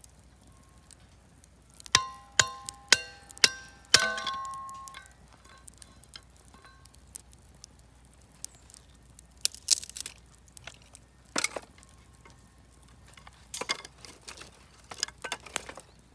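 Five sharp, ringing knocks about half a second apart, hard dry pieces striking one another as the bonfire of wood offcuts and firewood is tended. They are followed by scattered sharp cracks and clicks from the fire.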